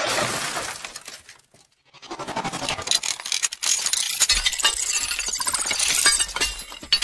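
Sound effects of something shattering and breaking apart, fading over the first second. After a short silence comes a long run of crashing and clattering, with a low rumble beneath it from about four seconds in.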